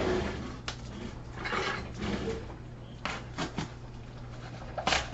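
Scattered knocks, clicks and rustles of things on a counter and a cardboard box being handled, with one louder knock near the end. A low steady hum runs underneath.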